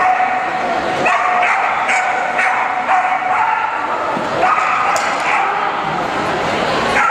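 Dog barking and yipping excitedly, short high-pitched yelps repeating over and over.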